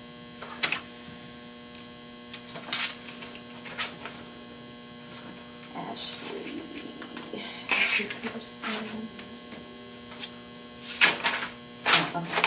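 Several short rustles of paper sheets being handled and binder pages being flipped, louder toward the end, over a steady electrical hum.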